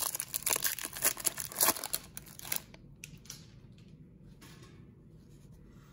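Crinkling and crackling of a foil trading-card pack wrapper and cards being handled, dense for about two and a half seconds, then only a few faint rustles.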